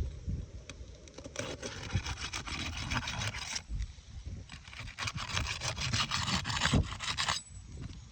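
Asphalt roof shingles being worked loose: a scraping rub, broken by fine crackling, as their sealant bond is broken. It comes in two stretches of about two seconds each.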